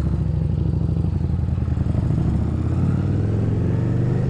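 Harley-Davidson Street Rod's 750 cc V-twin engine running under way, its pitch rising over the second half as the motorcycle accelerates.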